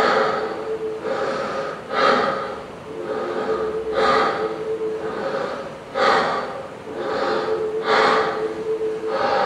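Performers breathing hard, a loud gasping breath about once a second, with a steady hum held underneath in stretches.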